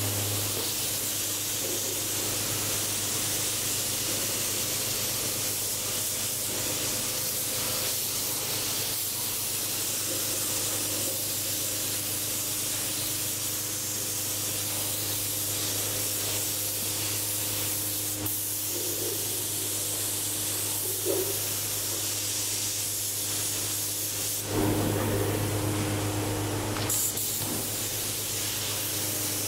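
Gravity-feed air spray gun hissing steadily as it sprays paint onto a motorcycle frame, over a steady low motor hum that swells for a few seconds near the end.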